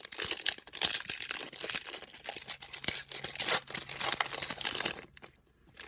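A trading card pack's wrapper being torn open and crinkled: a dense run of crackling that dies down about five seconds in.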